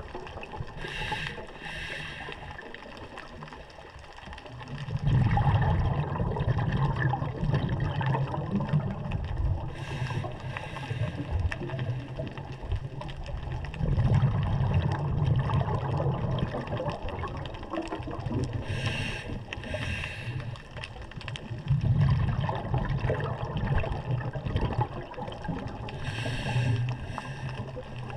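Scuba diver breathing through a regulator, heard underwater: short hissing inhalations followed by longer low bubbling exhalations, repeating about every eight or nine seconds.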